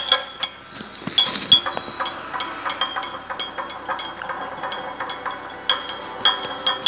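Metal spoon stirring water in a glass tumbler, clinking against the glass again and again, a few times a second in an uneven rhythm, each clink with a short bright ring.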